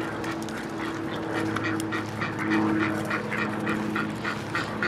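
A duck giving a quick run of short, soft quacks, about four a second, starting about a second and a half in, over a steady low hum.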